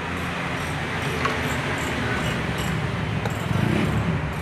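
Steady low rumble and hiss of background noise, growing a little louder about three and a half seconds in.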